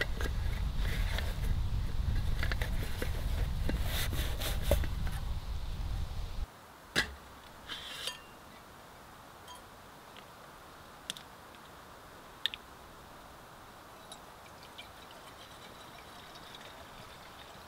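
Handling of a mesh stuff sack and its camp cook pot: rustling and small clicks over a low rumble, which cuts off suddenly about six seconds in. Then a few light metal clinks as the pot is set on a small camp stove, and near the end water faintly starting to pour from a bottle into the pot.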